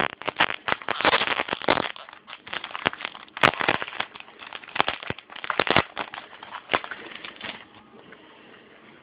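Foil wrapper of a trading card pack being torn open and crinkled: a dense run of irregular crackles that thins out over the last few seconds.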